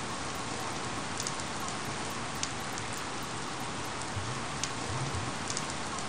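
Steady rain falling, an even hiss with a few sharper drop ticks scattered through it.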